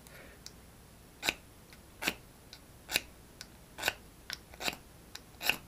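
A small tarnished ferrocerium fire steel struck with a metal striker: about six sharp rasping scrapes, a little under a second apart, with a few lighter ticks between them.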